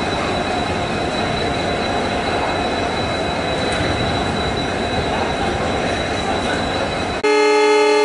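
Passenger train running along the platform, a steady rumble with a thin high whine. About seven seconds in, the WDP4B EMD diesel locomotive's horn cuts in suddenly: a loud, steady blast of several tones at once.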